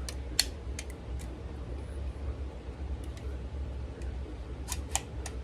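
Taurus TX22 .22 pistol being taken apart by hand: a scatter of short sharp clicks and taps as the slide and parts are worked free of the frame, the loudest about half a second in and another near the end. A steady low hum runs underneath.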